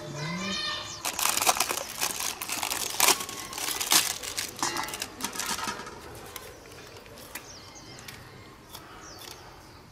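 Knife scoring a whole fish laid on a banana leaf: a run of rough scraping cuts through the scales and skin with the leaf crinkling underneath, dense for the first six seconds, then fewer and quieter.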